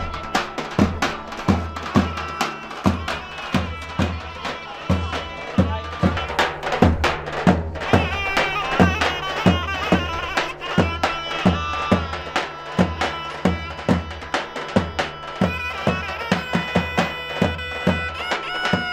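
Traditional folk dance music: a reedy wind instrument plays a wavering melody over a steady, strongly beaten drum.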